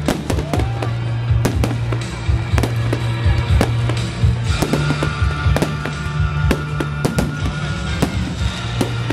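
A fireworks display: shells bursting in rapid, irregular succession, many loud bangs and crackles overlapping, with music playing underneath.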